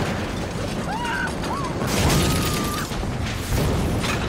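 Film sound effects of a plane crash-landing through a house: a continuous din of crashing, smashing wreckage and a fiery explosion, loudest about two seconds in, with a high drawn-out tone through the middle.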